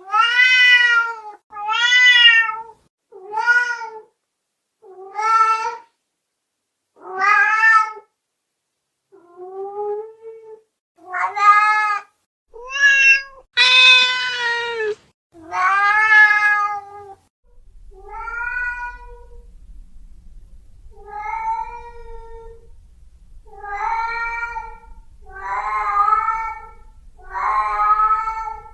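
Domestic cat meowing over and over, about fifteen separate meows with short pauses between them, some brief and some drawn out. A faint low hum sits under the second half.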